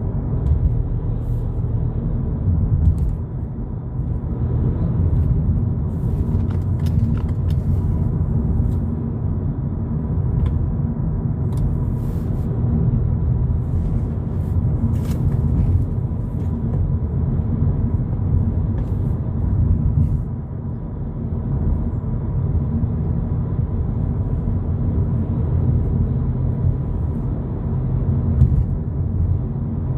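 Steady low driving noise of a 2022 Volkswagen Polo GTI on the road: engine and tyre rumble, with a few faint scattered ticks.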